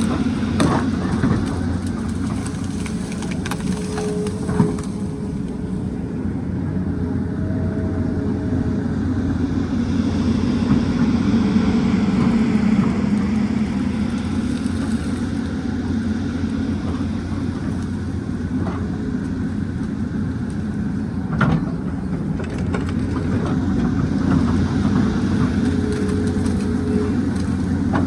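Excavator's diesel engine running steadily, swelling a little under load, with two sharp knocks, one about five seconds in and one near the three-quarter mark.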